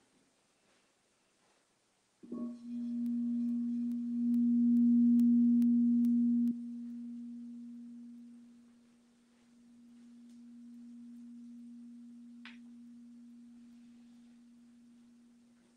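A crystal singing bowl sounds about two seconds in, and its tone swells. A few seconds later its overtones stop at once, and one steady low tone rings on, slowly fading and swelling again. A small click comes near the end.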